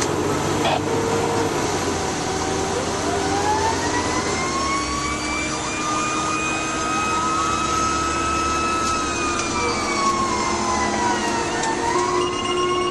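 Fire engine siren wailing, its pitch rising slowly and then falling back over several seconds, over the steady drone of the truck's engine. A steady high tone comes in near the end.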